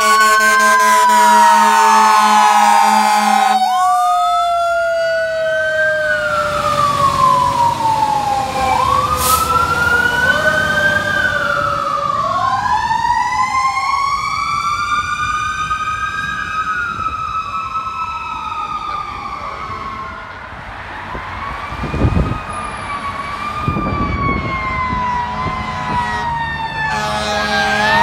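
Seagrave fire engine sirens wailing, several rising and falling at once, as the trucks respond to a call. A steady horn blast fills the first few seconds and comes back about a second before the end, and a couple of low thumps come about two-thirds of the way through.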